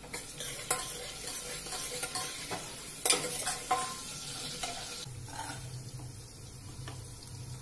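Spatula stirring and scraping in pans, knocking against the rims several times, over the sizzle of onions frying in oil; from about five seconds in, a wooden spatula stirs dry broken wheat roasting in a non-stick pan and a low steady hum comes in.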